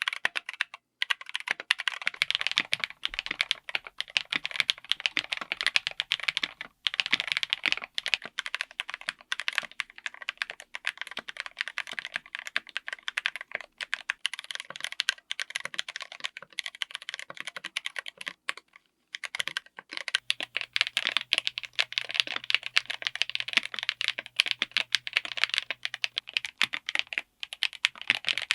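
Fast, continuous typing on a mechanical keyboard with linear switches: a dense stream of keystrokes broken by a few short pauses.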